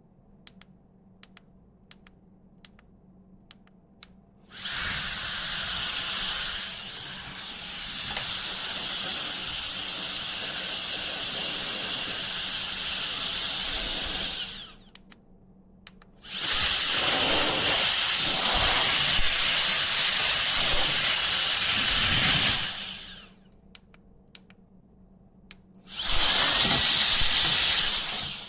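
Cordless electric air duster's high-speed fan motor blowing in three blasts, about ten, seven and two seconds long. The first carries a high whine that climbs as the motor spins up and drops as it shuts off.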